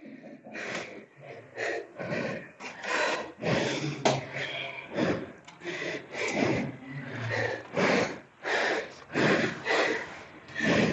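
A man panting hard, with quick breaths in and out about two a second. He is short of breath in the cave, where breathing is very difficult.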